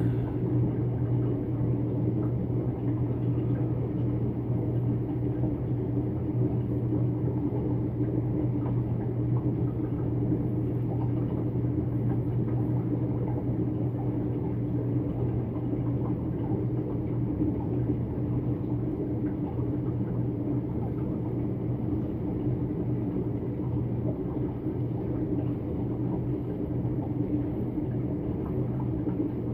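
A steady low hum that does not change, with its strongest pitch near 120 Hz and a weaker one higher up.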